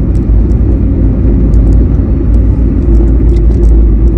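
Car travelling on the road: a steady, loud low rumble of road and engine noise.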